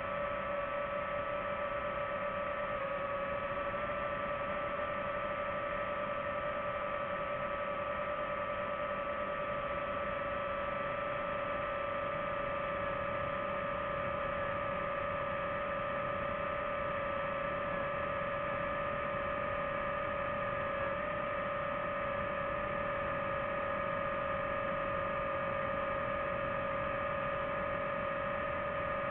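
A drone's motors and propellers whining steadily in flight: several steady tones over a hiss, dipping slightly in pitch about three seconds in.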